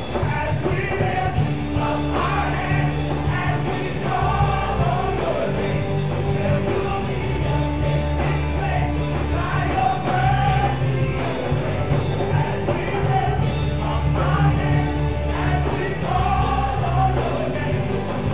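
Gospel praise-and-worship song: a praise team singing long held notes over a full band with a strong bass line and steady drums.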